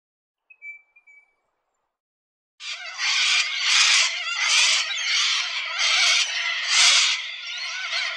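Little corellas screeching: a run of about eight harsh, grating screeches, starting between two and three seconds in. It is preceded by a faint short whistle about half a second in.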